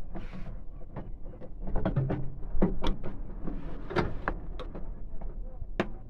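Hyundai Santro Zing plastic door trim panel being pushed and worked into place on the door frame with hands and a screwdriver, giving a string of irregular clicks and knocks as its clips and edges seat.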